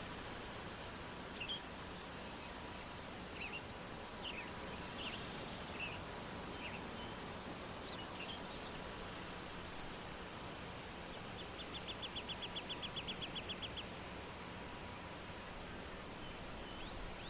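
Birds calling over a steady outdoor hiss: scattered short chirps, a few quick high whistles, and a little past halfway a rapid, even trill of about fifteen notes lasting a couple of seconds.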